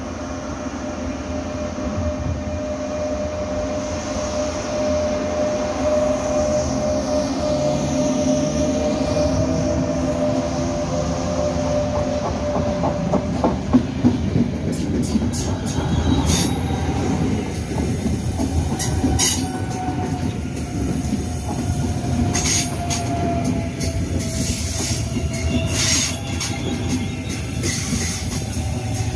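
Passenger trains moving through a station: a steady rail rumble with a thin, slowly falling wheel squeal. From about halfway on, a run of sharp clicks is heard as wheels cross rail joints and points.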